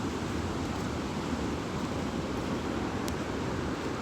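Steady rush of a waterfall, an even noise without breaks.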